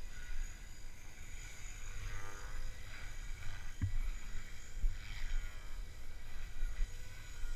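Wind rumbling on the microphone, over the faint whine and blade swish of a Gaui X3 electric RC helicopter in flight, which swells twice as it moves about. A brief knock about four seconds in.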